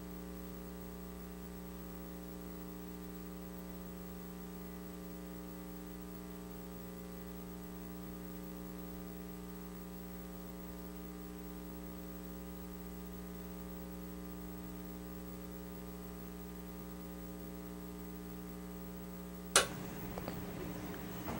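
Steady electrical mains hum with many evenly spaced overtones. It is broken by one sharp click near the end, after which faint, uneven background noise takes over.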